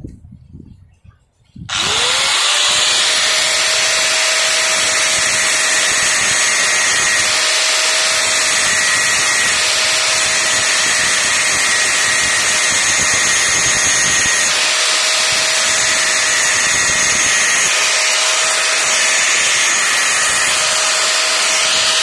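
Handheld angle grinder switched on about two seconds in, spinning up with a short rising whine, then running steadily with its abrasive disc grinding the steel shaft of a ceiling fan stator. The shaft is being ground down because the new bush sticks on it at the front.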